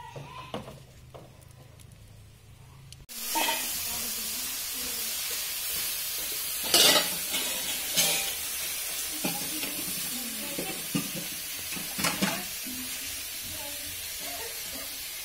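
Food frying in a pan: a steady sizzle that cuts in suddenly about three seconds in, with a few sharp clinks of a utensil stirring against the pan about seven, eight and twelve seconds in.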